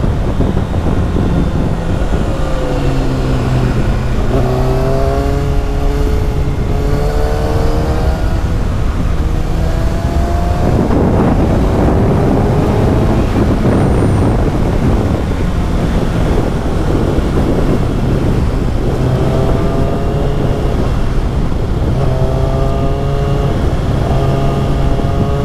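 Kawasaki ZX-6R 636 cc inline-four sport bike engine through an Akrapovic slip-on exhaust, pulling hard with the revs climbing repeatedly as it accelerates. Heavy wind rush on the microphone drowns it out for several seconds in the middle.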